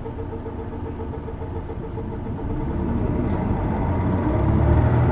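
Isuzu Erga city bus's six-cylinder diesel engine heard from inside the cabin, running steadily and then building in revs and loudness from about halfway through as the bus accelerates.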